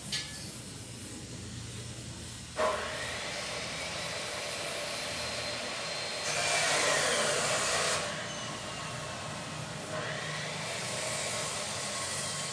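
Male village indigobird singing: faint whistled notes under a steady hiss. The hiss starts with a click a couple of seconds in and grows louder for about two seconds in the middle.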